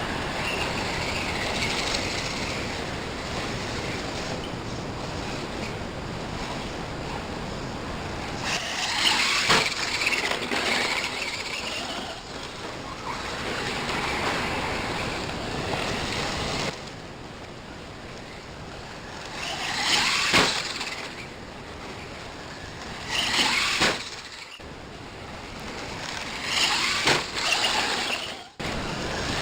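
Brushless-upgraded Dominus RC car's electric motor whining in repeated bursts of acceleration, with tyre and gravel noise and a few sharp knocks as the car hits the ground.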